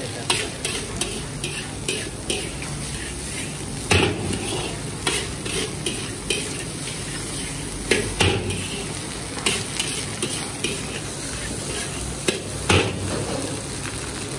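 Fried rice being stir-fried in a large black wok: a steady sizzle with a metal slotted spatula scraping and clanking against the wok, the loudest clanks coming about every four seconds.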